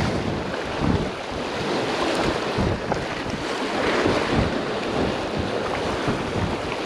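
Wind buffeting the microphone over surf washing and splashing across jetty rocks.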